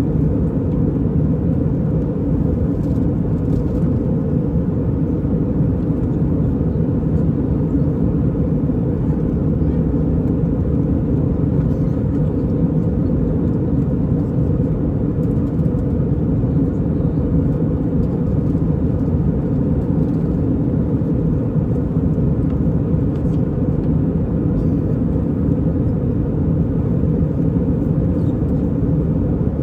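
Airbus A320 cabin noise heard from inside the passenger cabin: the steady, mostly low-pitched sound of the jet engines and airflow, unchanging throughout.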